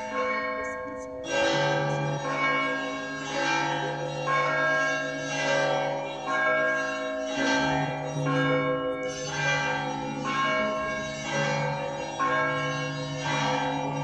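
Russian Orthodox church bells rung together in a zvon: several bells of different pitch are struck in a steady rhythm about once a second, a deeper bell sounds every few seconds, and each bell rings on between strikes. The ringing grows louder about a second in.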